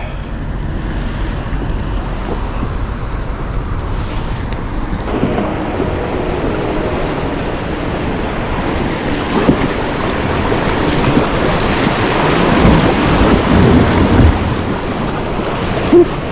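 Fast river water rushing and splashing around a fishing kayak as it runs a riffle, growing louder about five seconds in and loudest near the end, with a few sharp knocks against the hull.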